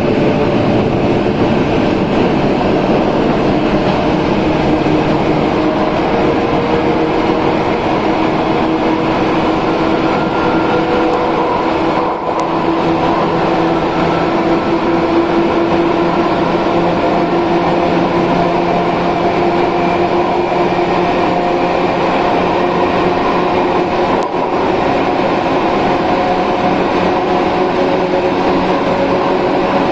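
Izu Kyuko 8000 series electric train with Hitachi-built traction equipment, heard from inside the passenger car while running: a steady rumble of wheels on rail with several low motor and gear whine tones that rise slowly in pitch. The level dips briefly twice.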